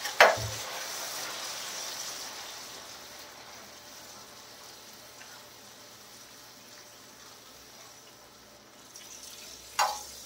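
Tomato and yogurt masala sizzling on a flat stainless-steel tawa, the hiss slowly fading. A metal slotted spoon clinks sharply against the steel pan just after the start and again near the end.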